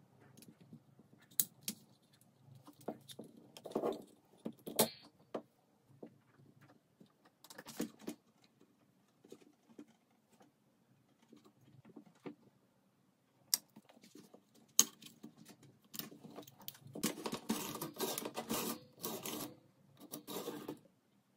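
Hand-handling noise of small hard objects: scattered sharp clicks and light knocks, with a busier run of rustling and scraping about three-quarters of the way through.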